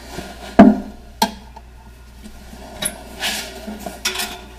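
A paint can knocks down onto the cast-iron transmission case about half a second in, with a lighter knock soon after. Then a paint brush scrubs paint onto the casting in a few short, scratchy strokes.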